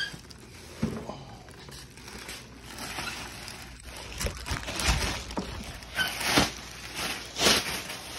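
Clear plastic packaging bag crinkling and rustling in irregular bursts as it is pulled off a pipeline inspection camera reel, the bursts growing louder and more frequent in the second half.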